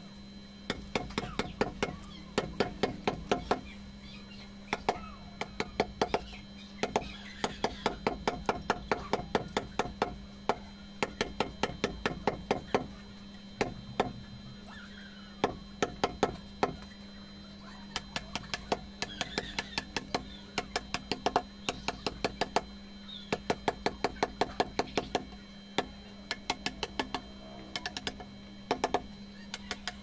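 Hammer striking a chisel to carve a soft natural-stone (paras) relief panel: rapid runs of sharp taps, several a second, with short pauses between runs. A steady low hum runs underneath.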